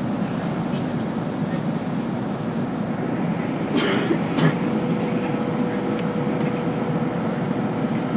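Steady rumble of a bus in motion heard from inside the passenger cabin: engine and road noise. There are two brief sharp noises about four seconds in, and a faint steady hum joins from about halfway.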